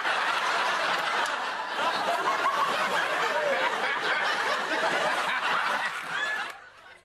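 Many people laughing together, a dense continuous wash of laughter that dies away near the end.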